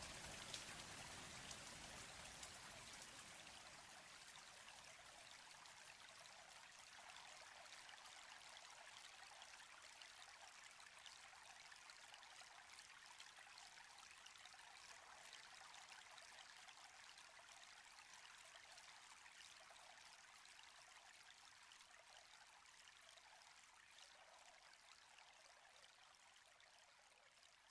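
Faint, steady rain with fine patter of drops, gradually fading out.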